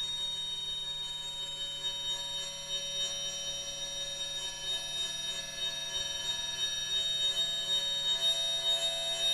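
A steady, high-pitched ringing drone of several held tones, an eerie soundscape in the manner of a horror score, with a faint pulsing lower tone beneath it. It grows a little louder toward the end.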